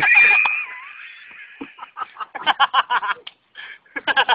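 Men's voices: a high, drawn-out shout at the start, then quick bursts of shouting and laughter.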